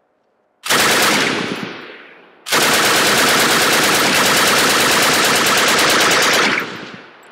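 Soviet DS39 7.62×54mmR heavy machine gun firing: a short burst that echoes away, then a long continuous burst of about four seconds that stops sharply and echoes out. The long burst is the gun running away, firing on by itself.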